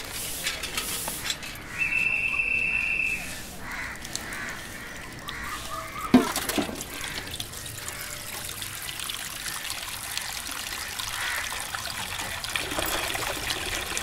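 Water running from a pipe into a basin, trickling and splashing through most of the second half. Before it come scratchy strokes of a stiff broom on a road surface, a steady high tone lasting over a second about two seconds in, and a sharp knock about six seconds in.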